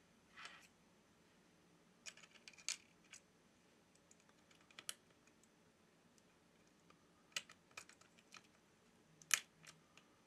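Sparse small clicks and taps of fingertips pressing connectors and parts into place on an opened smartphone's circuit board, the sharpest one a little before the end.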